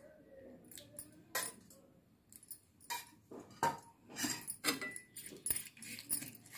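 Metal spoon clinking and scraping against a metal kadai as curd is stirred into cooked ivy gourd pieces: a few scattered taps at first, then quicker, busier clinks from a little past the middle as the stirring gets going.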